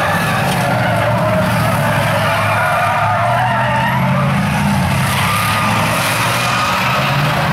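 Several enduro stock cars racing on an asphalt oval, engines running hard in a steady drone, with tyres squealing and skidding as the cars slide through the turn.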